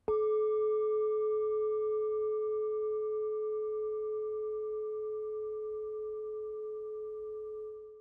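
A singing bowl struck once: a single clear tone with a few higher overtones, ringing on and slowly dying away, fading out near the end.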